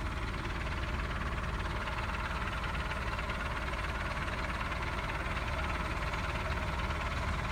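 Heavy earth-moving machinery, such as a bulldozer, running steadily with a constant deep engine rumble: a racket.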